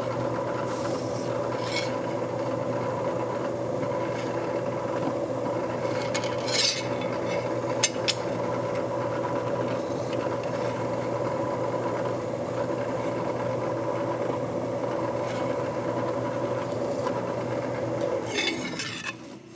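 Drill press motor running steadily while a chamfering cutter cuts a small chamfer on the machined part, with a few brief scrapes of the cutter. The motor stops and winds down quickly near the end.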